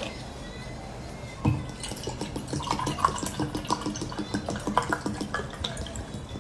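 A person drinking orange juice in quick gulps and wet slurping clicks, starting with a thump about a second and a half in and running as a fast series of swallows.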